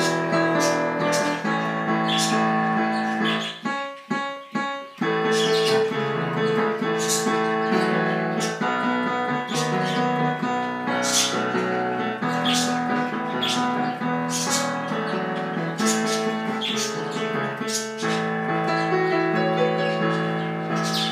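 Digital piano played with both hands: a continuous run of notes and chords. About four seconds in, the playing breaks into a few short, separated chords, then flows on.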